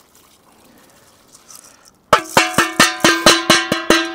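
Stainless steel bowl knocked about ten times in quick succession against the rim of a cast-iron kazan, ringing like a bell, to shake the last rice grains out. The knocks start about two seconds in, and the ring dies away after the last one.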